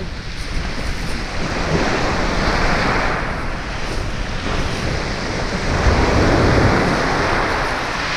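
Sea waves washing onto the beach, swelling and falling back, loudest about six seconds in, with wind rumbling on the microphone.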